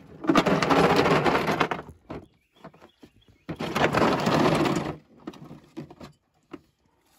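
Plastic socket-set case dragged across gravelly pavement, twice, each drag lasting over a second, with the sockets and ratchets rattling inside; a few light clicks of tools follow.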